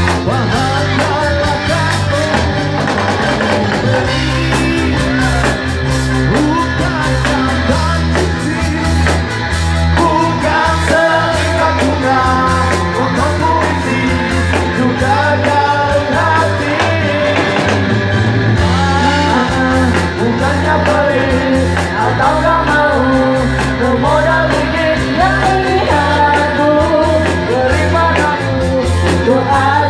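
Live dangdut koplo band playing, with electric guitar and a steady bass beat, while several people sing together into microphones.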